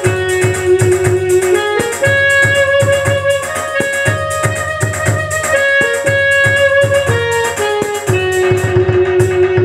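Roland E-X50 arranger keyboard playing its "Indian Punjabi Sax" setting: a lead melody of long held notes over the keyboard's rhythm accompaniment with a steady beat.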